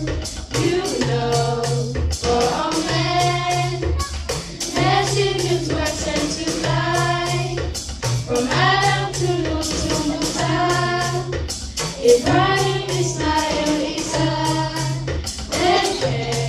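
A girls' choir singing a nasheed together over a regular low beat.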